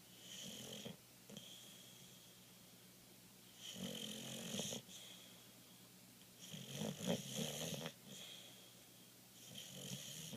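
Boxer dog snoring in its sleep: four snores about three seconds apart, the third the loudest.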